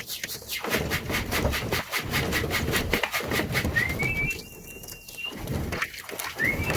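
Racing pigeons cooing at the loft, a low pulsing rumble, with a thin high whistle-like tone that rises and then holds briefly about four seconds in.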